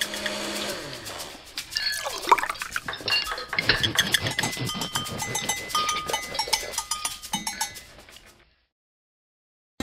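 Title-sequence sound effects: a dense run of small clicks and rattles mixed with short bell-like tones, with a gliding swoosh about two seconds in. The sound fades out over the last second or so before going silent.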